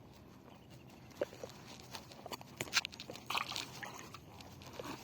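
A freshly caught tilapia flapping and thrashing, giving irregular wet slaps and splashes, loudest around the middle.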